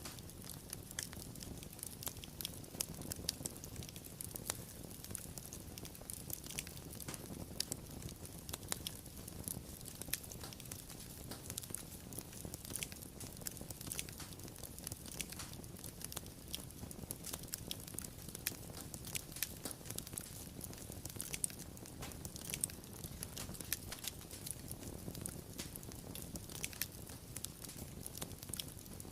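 Wood fire burning with irregular sharp crackles and pops over a low steady rumble of flames.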